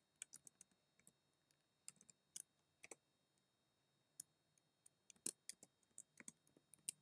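Faint computer keyboard keystrokes: scattered single clicks at an uneven pace, coming more quickly in the last two seconds.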